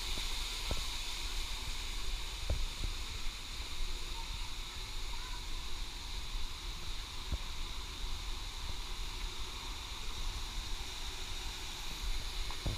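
Steady outdoor background noise: a constant hiss with a low rumble underneath and a few faint clicks.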